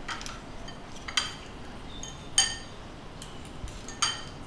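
Metal cutlery clinking against ceramic bowls and plates while people eat. There are four sharp clinks about a second apart, each ringing briefly at a high pitch, and the loudest comes a little past halfway.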